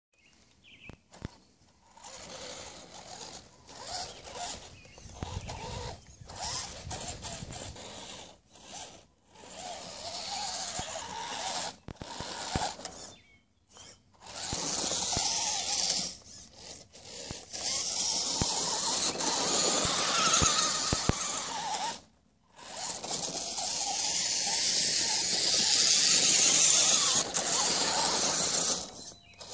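A 1/10-scale RC rock crawler's electric motor and gear drivetrain whining under load in start-stop bursts of throttle, with several short pauses between, the runs getting longer and louder in the second half.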